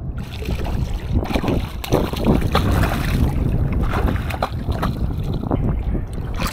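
Hooked jack thrashing and splashing at the surface right beside the boat in a run of irregular sharp splashes, with wind buffeting the microphone.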